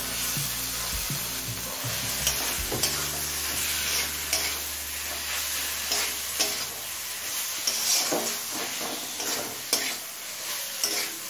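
Boneless chicken pieces sizzling in a kadai of hot spice masala while a spatula stirs and scrapes them through it, with many short irregular scrapes over a steady frying hiss.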